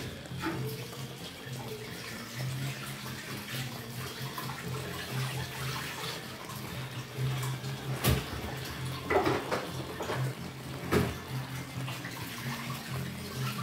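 Thick garlic cream sauce simmering in a frying pan around chicken fillets, bubbling with a few louder pops and plops about eight to eleven seconds in, over a steady low hum.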